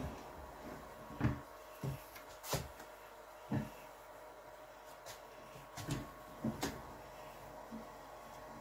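Several sharp knocks and clacks as the clear plastic lid of an electric honey extractor is closed and settled on its stainless steel drum. Under them runs a faint steady hum as the frame rotor begins to spin.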